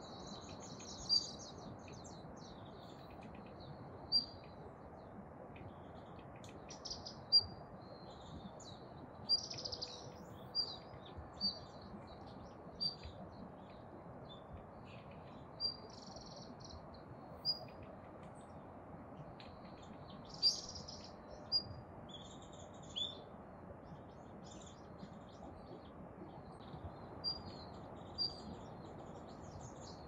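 Male Daurian redstart calling: short, thin, high notes given singly or in quick pairs, about fourteen at irregular intervals of one to three seconds.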